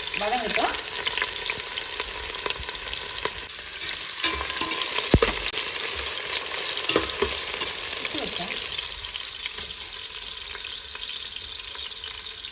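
Sliced onions frying in hot oil and ghee with whole spices, a steady sizzle, while a spoon stirs them with scattered clicks and scrapes against the pan and one sharper knock about five seconds in. The sizzle eases a little near the end.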